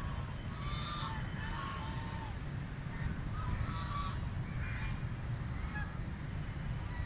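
White ducks quacking, a series of short calls scattered a second or so apart, over a steady low rumble.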